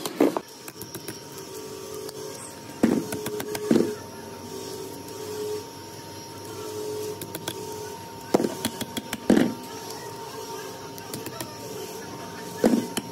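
Workshop machine noise: a steady hum with loud clusters of sharp knocks and clicks. The clusters come near the start, twice around three to four seconds in, twice around eight to nine seconds in, and again near the end.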